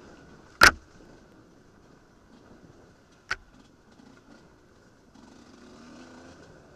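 Enduro dirt bike running along a rutted trail, its engine faint and muffled as heard from a camera mounted on the bike, broken by two sharp knocks: a loud one under a second in and a smaller one about three seconds in.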